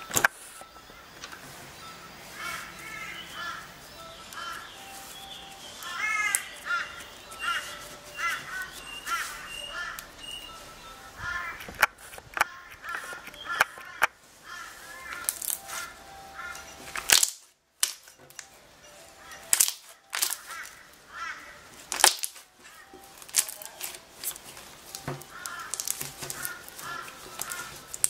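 Slime being pressed and pulled by hand, with sharp sticky pops and clicks, while birds call repeatedly in the background.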